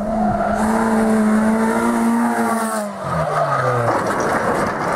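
Rally car engine held at high, steady revs, then dropping sharply in pitch about three seconds in, as the throttle comes off.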